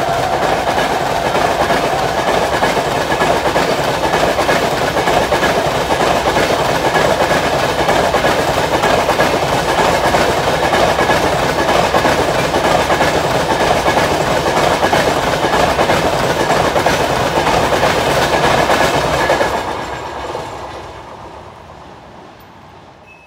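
Passenger coaches of an express train running past at speed close by: a loud, steady rush of wheels on rail with clickety-clack. In the last few seconds it fades away as the end of the train recedes.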